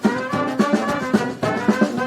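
Brass band playing live: horns holding and moving between notes over a steady drum beat of about four strokes a second.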